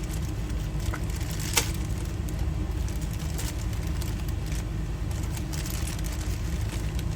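A few light, sharp clicks of a door lock cylinder being handled, the loudest about a second and a half in, over a steady low hum.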